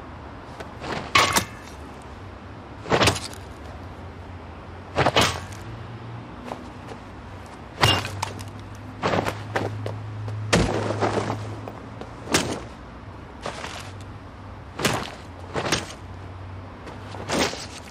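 A series of sharp knocks and crackles, roughly one every one to two seconds, over a low steady hum.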